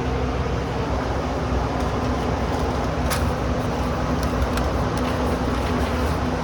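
Steady low mechanical drone with a faint even hum, and a few light clicks about three and four and a half seconds in.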